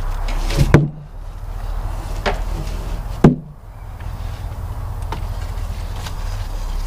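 A heavy cedar cant being rolled over onto a stack of cants, giving two loud wooden thuds about two and a half seconds apart, the second the louder. A steady low hum runs underneath.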